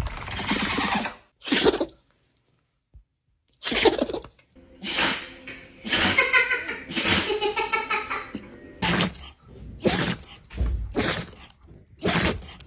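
Dogs sneezing again and again: about ten short, sudden bursts, some close together, with a longer stretch of pitched, voice-like sound in the middle.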